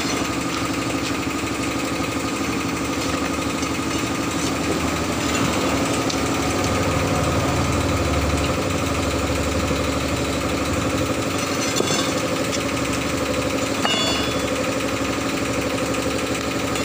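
An engine running steadily at an even speed, with a couple of short clicks in the second half.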